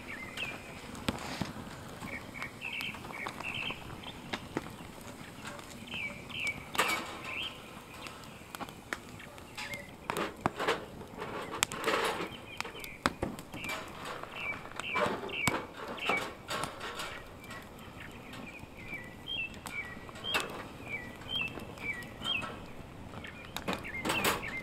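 Small birds chirping in clusters of short high notes, over scattered knocks and rustles.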